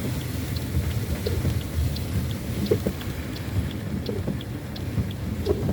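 Low, steady rumble of a car driving, with scattered light ticks and taps.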